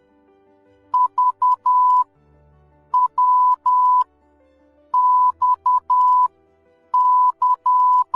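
Morse code (CW) sent as a steady beep tone, keyed into dots and dashes in four evenly spaced letter groups: the alphabet's V, W, X and Y in order (dot-dot-dot-dash, dot-dash-dash, dash-dot-dot-dash, dash-dot-dash-dash).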